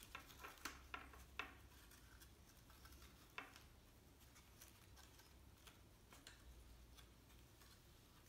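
Faint rustling and light ticks of paper being handled as a paper flower and its wish card are fitted together: a cluster of small clicks in the first second and a half, one sharper tick about three and a half seconds in, then only faint handling near silence.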